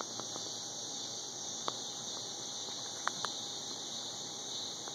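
Raccoons foraging and eating around small plastic food containers: a few light, sharp clicks and taps scattered through, over a steady high hiss.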